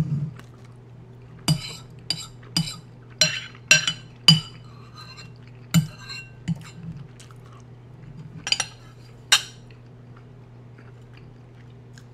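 Eating utensil clinking against a dish of stew while eating: about ten sharp, irregularly spaced clinks.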